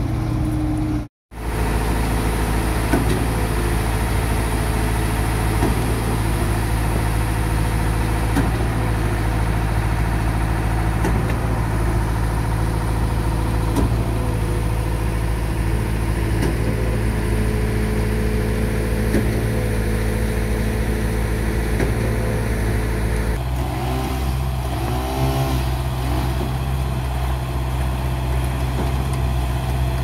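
Diesel engines of a concrete mixer truck and a concrete pump running steadily. There is a brief dropout about a second in, and the engine note shifts about three-quarters of the way through.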